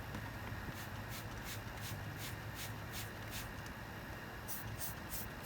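Rhythmic scrubbing or scraping strokes, about three a second, over a steady low hum.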